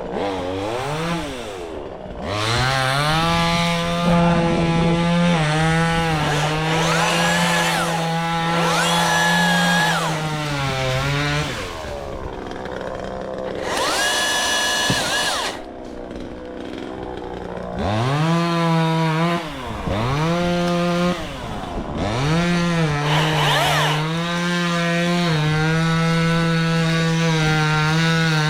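Chainsaw revving up, running steadily at full speed while cutting, and slowing down between cuts, several times over, with a short run of quick on-off revs partway through.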